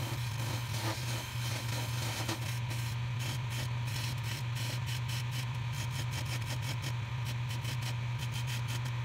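Wood lathe running with a steady low hum while a turning chisel cuts the spinning spalted maple column, a scraping hiss of the cut over the motor. From about two and a half seconds in, the hiss comes in quick pulses.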